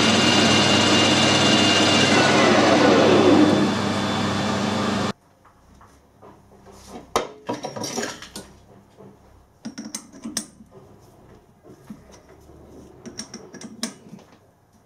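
Metal lathe running, with a whine that falls in pitch a couple of seconds in, then cut off abruptly about five seconds in. After that come light, scattered metallic clinks and knocks of the four-jaw chuck and the steel workpiece being handled.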